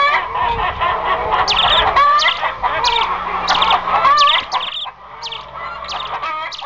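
A hen clucking, joined about a second and a half in by a chick's high peeps repeating about every two-thirds of a second; the clucking stops after about four and a half seconds, leaving the peeping.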